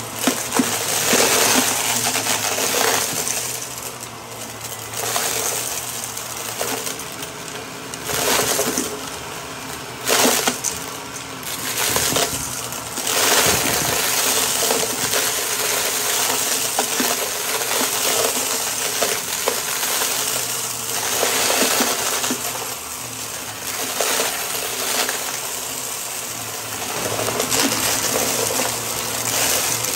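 Upright vacuum cleaner running over a shag rug and sucking up a dry mix of grit, glitter, sequins and beads. The debris crunches and rattles through the nozzle over the steady motor, growing louder in surges each time the head is pushed into the pile.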